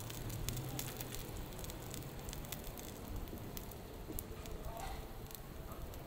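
Roti canai with egg and minced meat frying on a flat iron griddle: hot oil sizzling and crackling, with many small pops all through.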